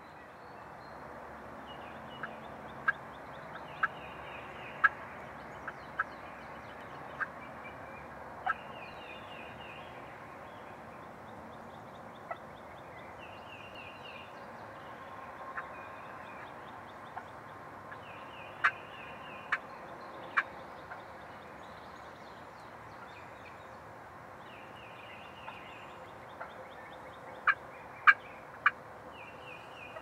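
Wild turkeys calling: short, sharp notes that come singly or in clusters of two or three, a few seconds apart, with the loudest cluster near the end.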